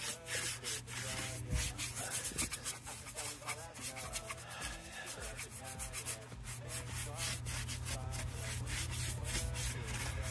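Small hand brush scrubbing degreaser-wet plastic engine parts and hoses in quick, repeated strokes, agitating the dirt. A steady low hum runs underneath.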